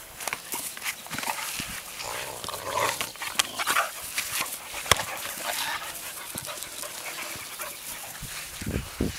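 Two boxer dogs playing together over a soccer ball, with dog play noises and scattered sharp knocks and scuffs, the strongest knock about five seconds in.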